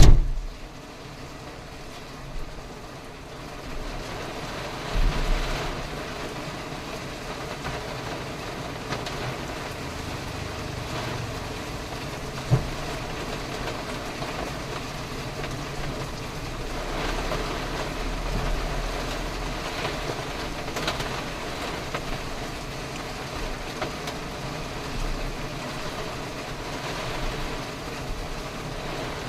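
Steady low rumble of a vehicle on the move, with a few short thumps.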